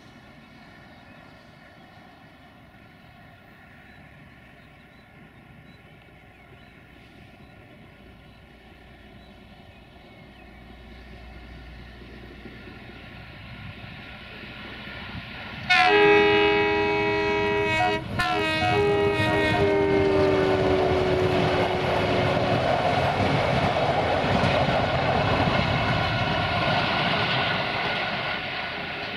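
CFR class 060-DA (LDE2100) Sulzer diesel-electric locomotive hauling a passenger train, its engine growing louder as it approaches. About two-thirds of the way in it sounds its horn in two blasts, and the second drops in pitch as the locomotive passes. The coaches' wheels then rattle loudly over the rails, fading near the end.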